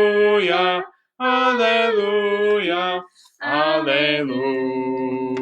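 Voices singing a slow hymn refrain, "Hallelujah" three times in long held phrases with short breaks between them. The last note is still held at the end.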